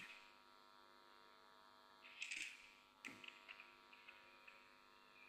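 Near silence: a steady electrical hum, with a brief faint rustle about two seconds in and a click about three seconds in.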